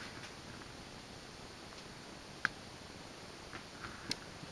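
Quiet room tone with a few light clicks of handling. The sharpest comes about two and a half seconds in, and smaller ones follow near the end.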